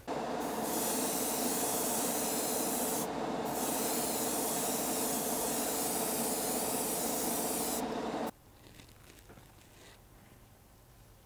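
Spray booth extractor fan running with a steady hum while paint is sprayed onto a model car body in hissing passes, with a brief pause about three seconds in. The spraying stops shortly before the fan cuts off, about eight seconds in.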